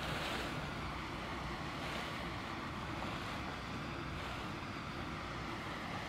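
Steady sea-and-wind noise on open water, an even rush with a low rumble underneath.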